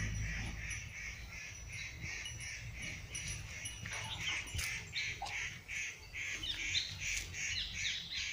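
Birds calling: a steady pulsing call repeated about three times a second, with a few sharper calls over it in the middle.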